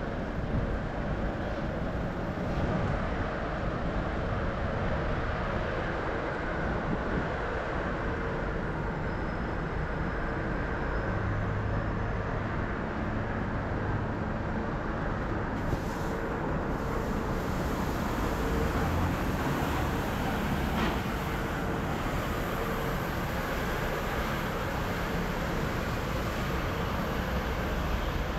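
City street ambience with road traffic running steadily. A low steady hum stands out for a few seconds about ten seconds in.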